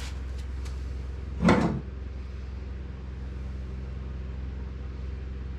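A single short clunk about a second and a half in, with a few light clicks before it, from transducer-mounting hardware being handled against the aluminum boat's transom. A steady low hum runs underneath.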